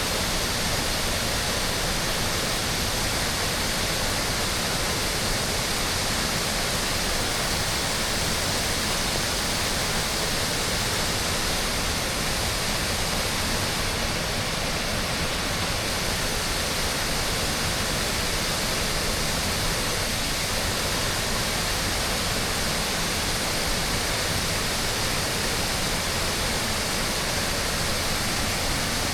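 Waterfall: the steady, even rush of falling water, unchanging throughout.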